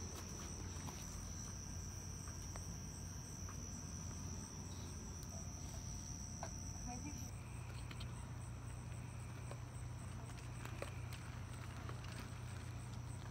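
Crickets trilling faintly at a steady high pitch. The strongest trill drops away about seven seconds in, leaving a fainter pulsing one, over a low steady hum.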